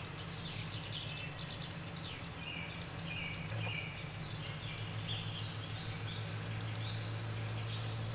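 Small birds chirping repeatedly in short, high calls over a steady low hum.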